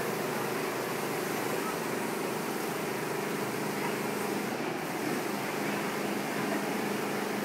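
Steady rush of wind and ocean surf, with a low, steady hum underneath.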